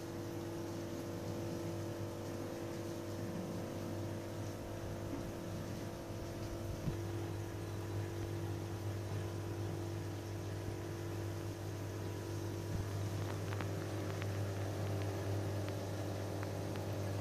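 Steady hum of reef aquarium pumps and a wavemaker powerhead running, over a soft even hiss, with one light knock about seven seconds in.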